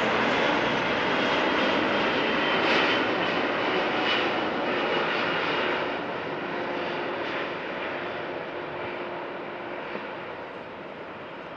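A Boeing 777 freighter's GE90 turbofan engines on landing approach: a steady jet rush with a faint whine. It is loud at first, then fades from about halfway through as the aircraft passes and moves away.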